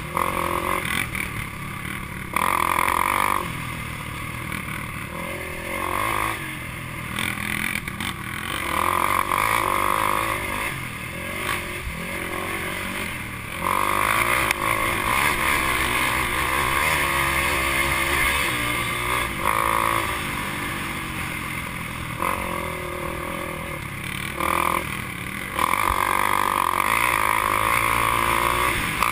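Race quad's engine running hard on a dirt trail, the throttle opened and closed again and again so that it surges loud for a few seconds at a time and drops back in between. Heard close up from the rider's helmet camera.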